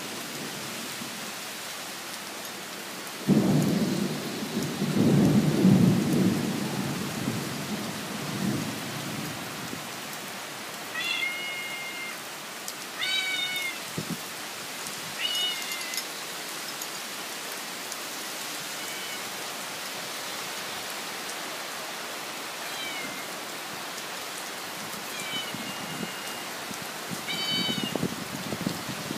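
Steady rain with a long rumble of thunder starting suddenly about three seconds in and fading over several seconds. From about ten seconds on, short high-pitched animal calls repeat every second or two over the rain.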